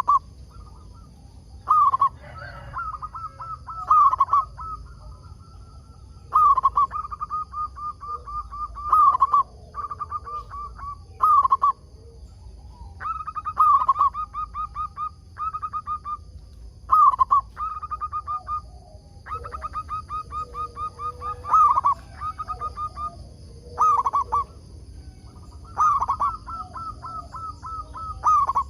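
Zebra dove (perkutut) cooing its song: repeated phrases, each a loud opening note followed by a fast run of short coos, one every two seconds or so.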